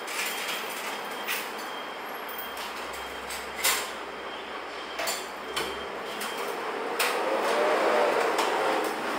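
Small restaurant's background noise: a steady rush with a few scattered clicks and clinks of bowls and utensils being handled at the counter. The rush grows louder about seven seconds in, with a faint hum rising through it.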